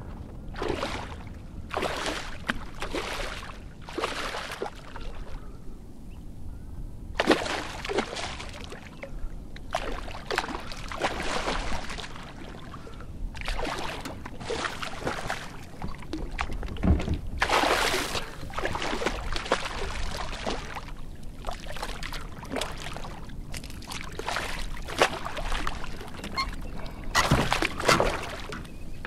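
Kayak paddle strokes: the blades dip and splash into the water, then drip, about one stroke a second, with a short pause partway through.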